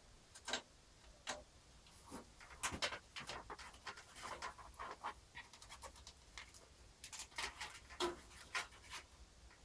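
Scattered light clicks, taps and rustles of a drive ribbon cable and its plastic connectors being handled and pushed into place inside a PC case.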